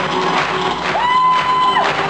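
Music playing, with one held high note, sliding up at its start and down at its end, lasting just under a second in the second half.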